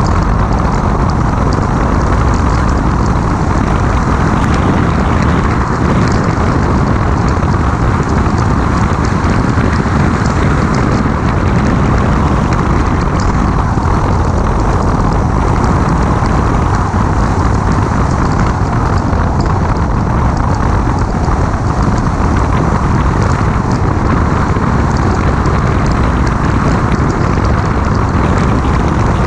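A 2006 Mini Cooper S driving at a steady pace, heard as loud, steady wind noise buffeting the microphone over engine and tyre noise.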